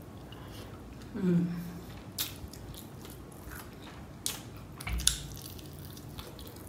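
Close-miked chewing of a mouthful of biryani rice and chicken eaten by hand: soft, wet mouth sounds with a few sharp smacks spread through. About a second in there is a brief hummed 'mm'.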